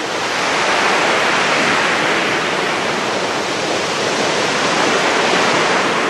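Sea surf breaking and washing up a pebble beach: a loud, steady rush of water.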